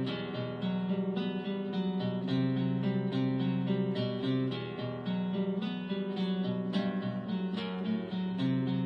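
Acoustic guitar music: plucked notes ringing on in a melody, with no singing.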